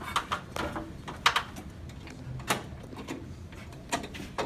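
A handful of short, sharp clicks and knocks, the loudest a little over a second in, from doorbell parts and tools being handled.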